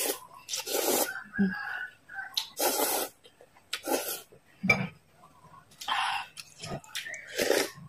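Instant noodles being slurped in from chopsticks: about five separate hissy slurps, each about half a second long, with wet mouth clicks and chewing between them.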